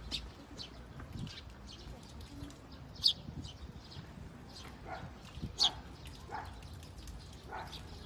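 Small birds chirping in short, high, scattered calls, two of them louder about three and five and a half seconds in.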